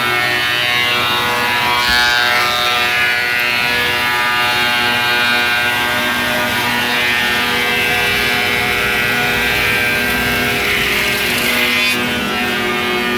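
Diesel generator running steadily at a constant speed, a continuous hum made of many even tones.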